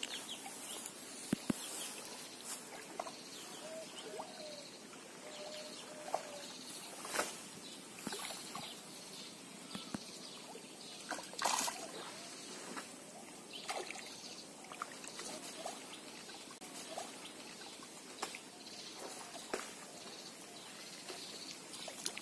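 Pond water sloshing and trickling as a cast net is hauled in by its rope and drawn out of the water, with a few sharper splashes and drips scattered through.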